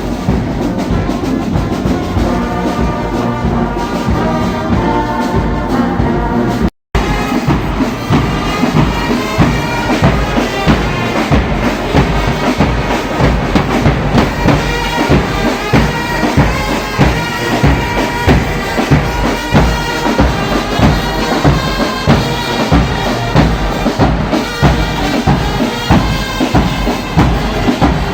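Church brass band playing, with trumpets and trombones carrying the tune over a steady drum beat. The sound drops out for a moment about seven seconds in, then the band plays on with the drum beat strong and regular.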